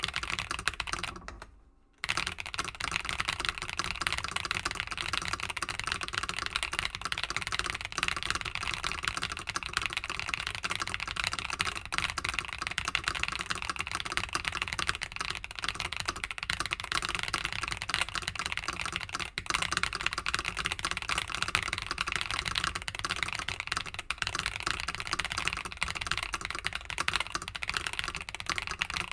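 Very fast typing, about 220 words per minute, on a mechanical keyboard with tactile switches: a dense, unbroken stream of key clicks. There is a brief pause of about half a second near the start.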